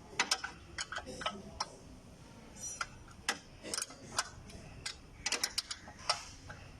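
Irregular sharp metallic clicks and clinks of a hand tool loosening the fasteners that hold a Maruti 800's dry-type air cleaner onto the carburettor, with a quick run of ticks about two and a half seconds in.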